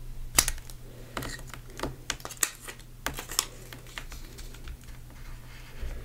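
Irregular light clicks and crackles of vinyl sheets and transfer tape being handled and peeled by hand, a few a second.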